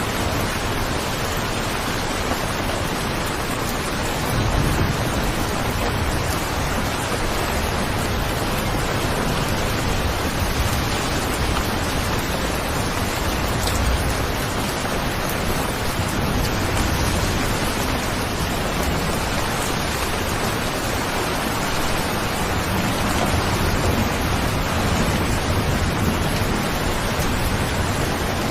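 Steady heavy rain, an even hiss with no individual drops standing out, with a couple of brief low swells in the rumble.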